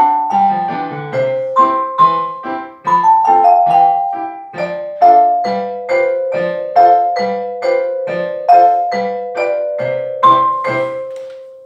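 Closing bars of a slow mallet-percussion piece with piano accompaniment: notes and chords struck about every half second over low bass notes, the last note left ringing and fading out near the end.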